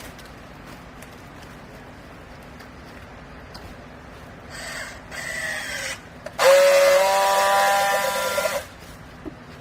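Hydraulic clothes baler running: a steady low motor hum, with a shorter noisy stretch in the middle and then a loud hissing whine of about two seconds that stops abruptly.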